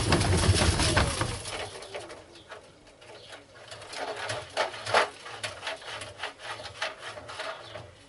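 LG front-loading washing machine drum spinning with a brick inside: loud rumbling and banging for about two seconds that dies away, then scattered knocks as the drum loses speed and the spin stalls under the load.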